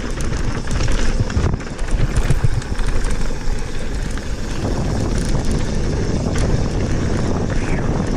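Santa Cruz Bronson mountain bike rolling fast down a gravel trail: wind buffeting the camera microphone over the steady tyre noise, with scattered small rattles and knocks from the bike.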